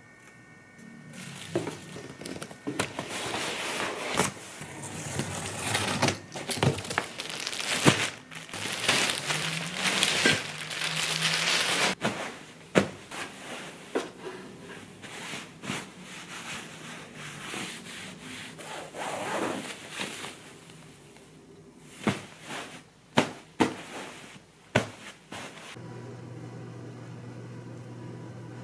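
Packaging handled during an unboxing: dense rustling and crinkling of plastic wrap and cardboard, with scraping and clicks, for about ten seconds. Then come scattered sharp taps and knocks, and near the end a steady low hum.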